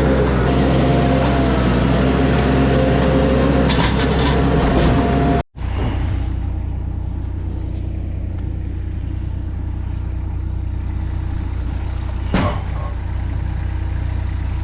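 An engine running loudly with a faint whine over it. After an abrupt cut, a steady low engine drone follows, like a vehicle driving, with a single knock near the end.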